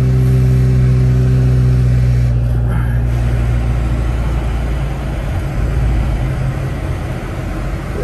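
Car driving, heard from inside the cabin: a steady engine hum over tyre and road noise. The hum fades away after a few seconds, leaving the road noise.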